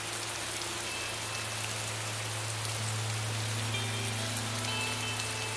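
Steady heavy rain falling, with a low held drone beneath it that swells about three seconds in and a few faint sustained notes above, the quiet intro before the metal song starts.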